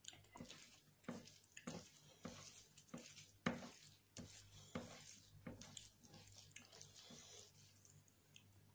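Fingers mixing and scooping cooked rice with curry gravy on a plate: soft, irregular wet squelches and clicks, about one or two a second.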